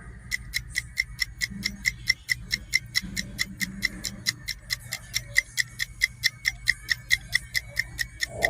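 Rapid, even clock-like ticking, about five ticks a second, over a low steady drone.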